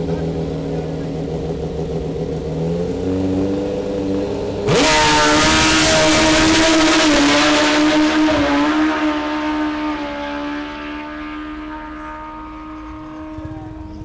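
Drag-racing sport motorcycle's engine held at high revs on the start line, stepping up once, then about five seconds in a sudden launch at full throttle. The loud engine note holds for a few seconds and fades as the bike runs off down the strip.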